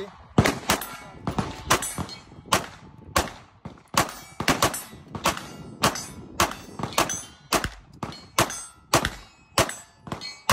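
CZ DWX pistol fired in a steady string of shots, about two a second, some with a short ringing tail.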